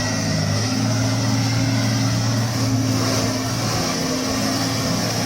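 Heavy truck's diesel engine running steadily, a low even drone.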